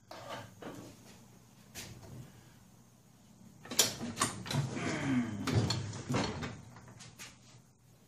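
Knocks, clunks and scraping as a Snapper 21-inch walk-behind mower is handled and shifted on a workbench. A few single knocks come first, then a busy spell of clatter and scraping with a short squeak from about four to six seconds in.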